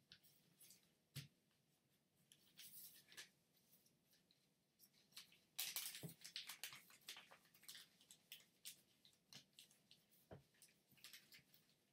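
Sheet of origami paper crinkling and rustling as it is folded and creased by hand, in many small crackles that are thickest and loudest about halfway through.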